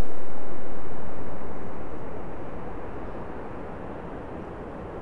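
A steady, low rushing noise, loud at first and fading steadily over several seconds.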